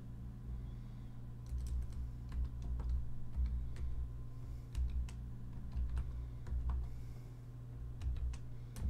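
Typing on the PinePhone's clip-on keyboard: irregular, quick clicks of its small keys as a short command is entered, over a steady low hum.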